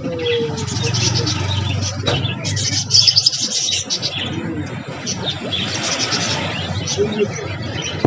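A crowd of caged zebra finches and budgerigars chirping, many small calls overlapping without pause.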